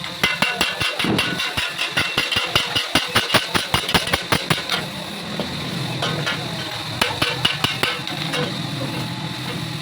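Hammer beating on sheet metal in a fast run of ringing strikes, about five a second, for the first four and a half seconds. Shorter runs of strikes come about six and seven seconds in, over a steady machine hum.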